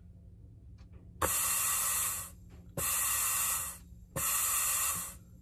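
Three bursts of compressed air hissing from a shop air nozzle, each about a second long with short gaps, starting about a second in. The air is blown into the Ford C4 front pump's feed passage to apply the direct clutch piston for an air check of clutch pack clearance.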